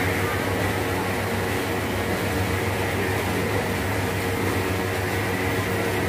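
Steady whir and low hum of a running electric desk fan.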